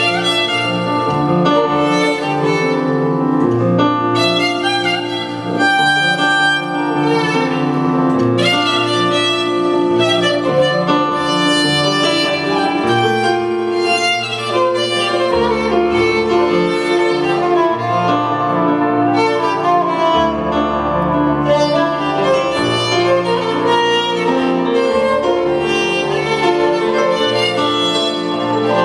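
Kamancheh, the Persian spike fiddle, bowed in a flowing melody over a low sustained accompaniment that shifts note every few seconds.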